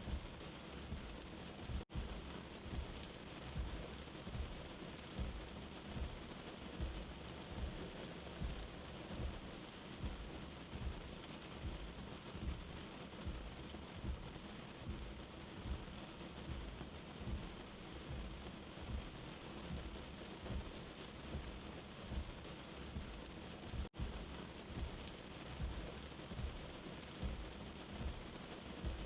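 Steady rain, an even hiss of falling water, with a low pulse repeating about once a second underneath. The sound drops out for an instant twice, once near the start and once about five seconds before the end.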